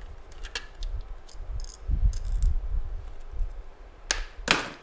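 Small clicks and taps of a screwdriver and plastic parts being handled as a plastic pest-repeller housing is taken apart, over low handling rumble, with two short rustling sounds about four seconds in.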